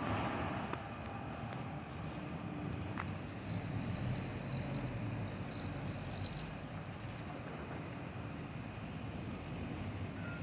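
Evening insects, crickets or similar, singing one steady high-pitched trill over a continuous low rumble, with a single click about three seconds in.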